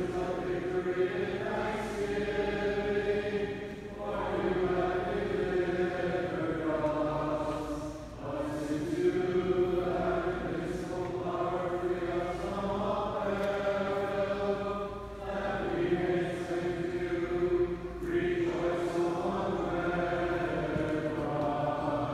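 Byzantine liturgical chant sung in long, held phrases that pause briefly every few seconds.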